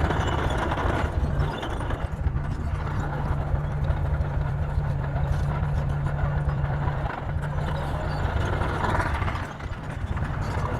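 Heavy earthmoving machine's diesel engine running steadily, with a deep drone and mechanical clatter over it; the level dips briefly near the end.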